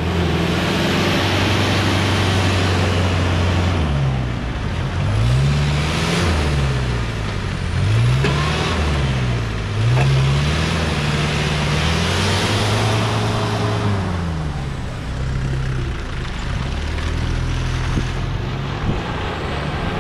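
Modified off-road jeep's engine being revved, its pitch rising and falling over and over as it is driven over rough, muddy ground, with a rushing noise from the ground and tyres swelling at times.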